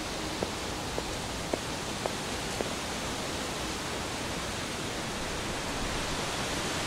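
Steady hiss with no music or voice, and a short run of faint ticks about twice a second during the first few seconds.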